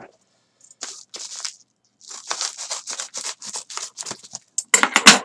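Scissors cutting open a paper envelope: a run of quick snips, loudest near the end.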